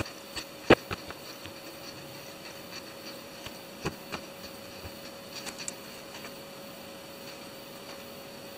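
A few small clicks and taps as wires are bent and pressed into place on a carbon-fibre drone frame, the loudest about a second in, over a faint steady hum.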